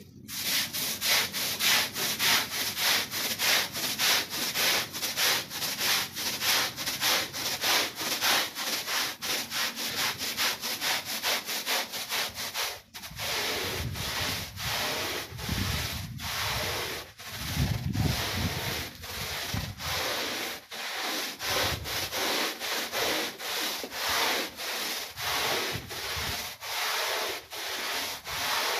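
Long-handled push brush scrubbing a soapy rug in quick, regular back-and-forth strokes, about two a second. About halfway through, the strokes turn slower and heavier as the brush pushes foamy suds across the rug.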